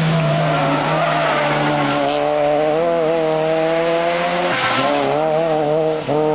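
Rally car engine running hard at high revs, its note held nearly steady with small wavers, broken briefly twice near the end before picking up again.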